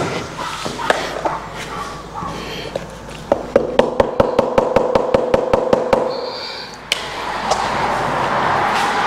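Rapid tapping on vinyl click-lock floor panels, about five even knocks a second for nearly three seconds after a few scattered knocks, seating the panels' locking joints so they lie flat. A steady rustling noise follows near the end.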